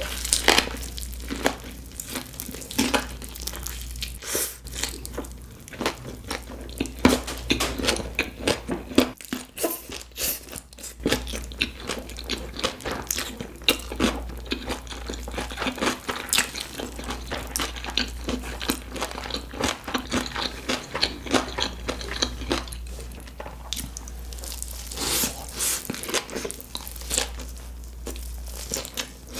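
Close-miked chewing and biting of beef bulgogi kimbap, a continuous run of wet, crunchy mouth clicks, over a steady low hum.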